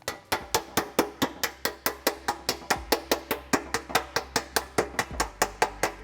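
Background music with a quick, even wood-block-like percussion beat, about six or seven strikes a second, over a held low bass note that changes about five seconds in.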